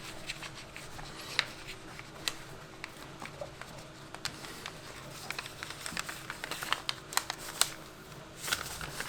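Hands handling a neoprene glove: scattered small clicks, taps and rustles, busiest past the middle, over a faint steady hum.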